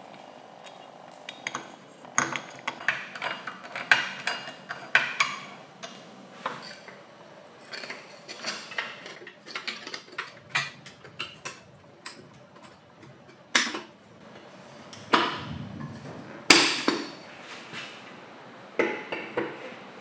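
Metal and plastic parts of an electric coffee grinder being handled and fitted together by hand: a string of short clicks, taps and knocks, with a few louder knocks in the second half.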